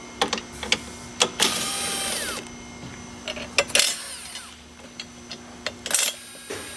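Cordless power driver with a socket running in short trigger pulls as it spins bolts off a car battery's hold-down bracket. Each run ends in a falling whine as the motor winds down, with sharp metallic clicks between the runs.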